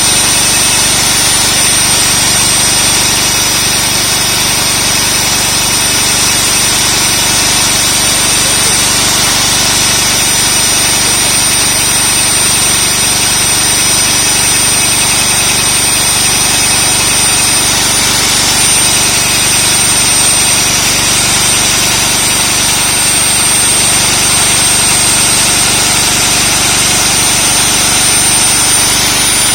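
Concrete core drill motor running steadily without a break, a continuous loud whir with a fixed high whine.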